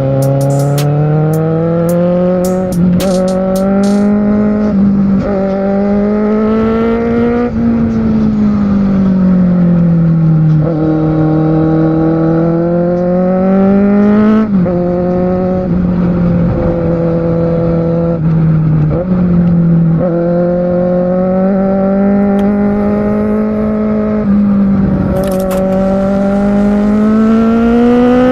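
Kawasaki Z750R's inline-four engine heard from on board while riding, its pitch rising under throttle and dropping suddenly at each gear change, with slower falls as the rider eases off and pulls again.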